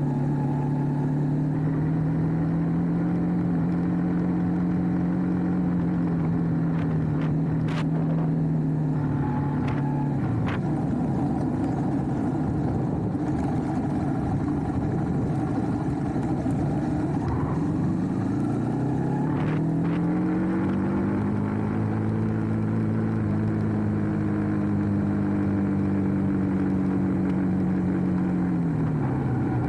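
A motor vehicle engine running at a steady pitch. It falls away about ten seconds in, climbs back up around twenty seconds, holds, then drops again near the end, over a steady low rushing noise.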